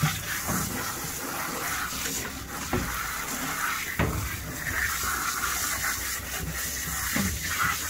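Shampoo-and-water mix spraying steadily from a dog-wash hose nozzle into a wet dog's coat, with a couple of light knocks partway through.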